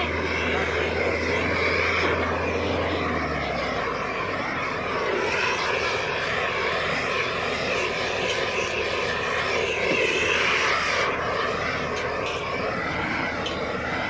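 Propane torch burning with a steady rushing noise, used to shrink the heat-shrink breakout of a power cable termination. A low engine hum underneath stops about three and a half seconds in.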